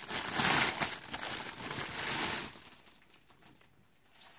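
Clear plastic packaging crinkling loudly as hands work in it and pull the item out, for about two and a half seconds, then dying away to a faint rustle.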